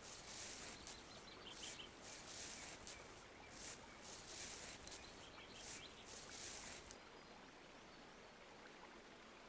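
Faint woodland ambience: soft rustling about once or twice a second, with a few faint bird chirps.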